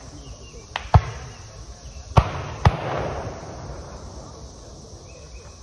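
Distant black-powder musket shots from Civil War reenactors. Four sharp cracks come in the first three seconds, two close together at about a second in and two more a couple of seconds later, and each echoes through the woods.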